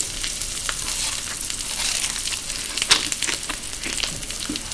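Shaved ice crunching and crackling as a bite is taken from an ice-covered tomahawk steak, with a sharper crunch about three seconds in, over a steady sizzle from a steak on a hot griddle.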